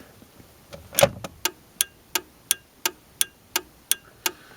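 Car turn-signal flasher clicking steadily, about three sharp ticks a second, with the directional switched on.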